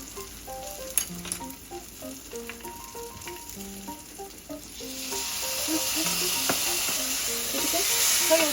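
Food sizzling as it fries, the sizzle coming in loudly about five seconds in, over light background music. A sharp click about a second in.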